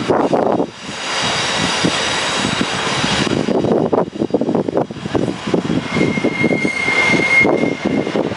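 Class 59 diesel locomotive's EMD 16-cylinder two-stroke engine running as it hauls a freight train slowly over curved pointwork, with a thin steady high squeal for a second or so about six seconds in.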